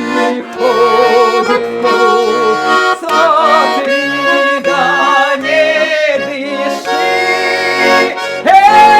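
Garmon (Russian button accordion) playing a folk-song tune, with held, wavering melody notes over chords. About eight and a half seconds in, the sound changes abruptly to a new steady sustained note.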